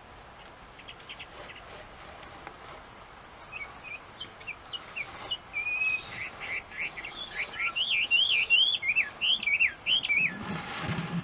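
Chinese hwamei singing: a few faint short notes, then from about three seconds in a loud, varied run of whistled phrases that slide rapidly up and down, growing stronger before stopping near the end.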